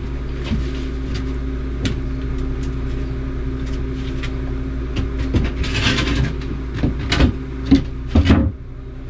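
A machine running steadily with a low hum, with scattered knocks and clatters over it and a short scraping noise about six seconds in; the hum dips just before the end.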